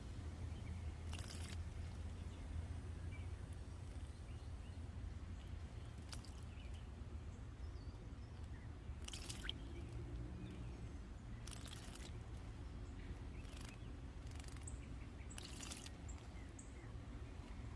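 Painted bunting bathing in a bird bath, splashing water in about six short bursts, most of them in the second half, over a low steady rumble.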